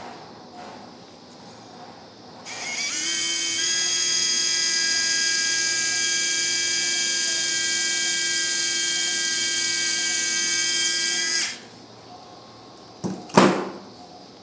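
Surgical power drill running at high speed for about nine seconds as it drills a hole through a dog's tibia for a tension-band wire. It winds up in pitch at the start, holds a steady high whine, and cuts off sharply. A couple of sharp clicks follow near the end.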